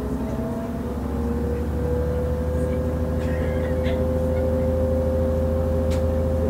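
The MTU 12V183TD13 diesel engine of a DB class 628.4 railcar, heard from on board, running with a steady low drone. A whine rises slowly in pitch as the railcar picks up speed, and the sound grows a little louder over the first two seconds before holding steady. A few faint ticks come through.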